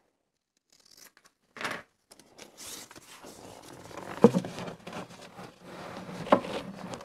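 Gummed paper tape and cardboard rustling and scraping as the tape is pressed and smoothed along the inside bottom of a cardboard box, with two sharp knocks against the box about four and six seconds in.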